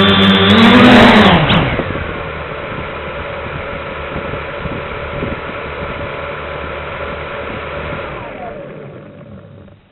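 FPV drone's electric motors whining at flying throttle, then dropping sharply in pitch about a second and a half in as it comes down onto the grass. The motors keep spinning at a lower, steady pitch, then wind down and fade out near the end.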